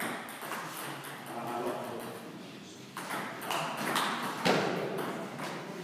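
Table tennis rally: the ball clicking back and forth off the bats and the table, with the sharpest hits about three to four and a half seconds in.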